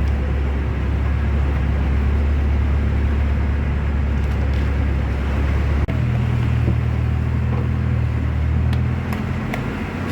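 Boat engine running steadily with a deep hum over a rushing hiss. About six seconds in, the hum changes abruptly to a somewhat higher pitch.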